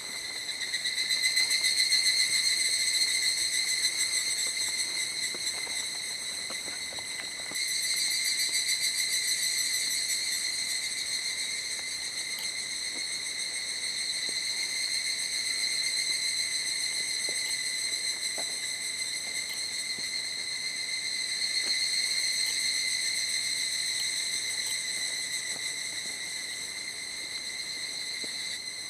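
Insects singing in a steady, unbroken high-pitched drone, with a sudden jump in loudness about seven seconds in.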